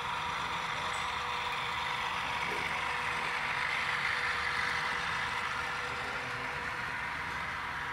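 HO scale ES44AC model diesel locomotives running, their onboard speakers playing a steady engine sound over the running noise. It swells slightly toward the middle and eases off near the end.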